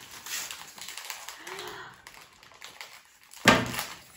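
Plastic snack wrappers crinkling and crackling as they are torn open and handled, in quick irregular clicks. A sudden loud short burst comes about three and a half seconds in.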